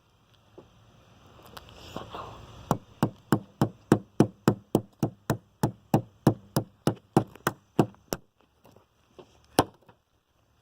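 A rapid series of hammer blows from the poll of a hatchet striking a fidget spinner, about three or four sharp knocks a second. They start about three seconds in after a brief rustle, run for some twenty strikes, then trail off into a few scattered lighter knocks.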